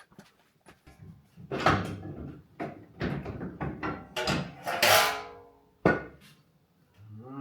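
Hand tools and metal parts being handled: a string of separate knocks, clinks and clatters, loudest around five seconds in, with a sharp click about six seconds in.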